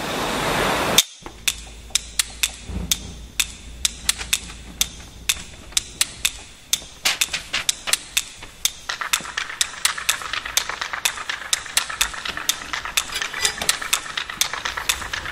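Old-film sound effect of the kind laid under silent movies: a loud hiss that cuts off about a second in, then irregular sharp clicks and pops over a faint hiss, like a worn film reel running through a projector. A steadier whir joins about nine seconds in.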